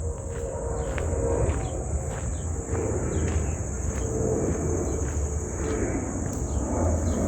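Steady high-pitched insect trilling, with a low rumble underneath and a few light ticks.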